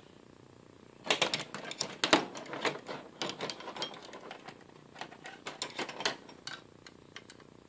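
Metal hand tools clinking and clattering against each other and the metal workbench top as they are rummaged through and picked up: a quick, irregular run of sharp clicks starting about a second in and thinning out after about six seconds.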